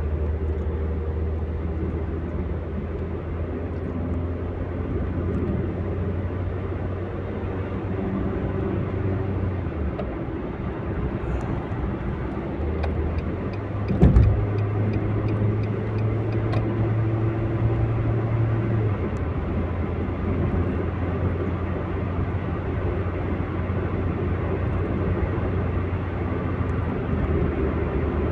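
Car cabin noise while driving: a steady engine drone and tyre and road noise, heard from inside the car. A single sharp thump comes about halfway through.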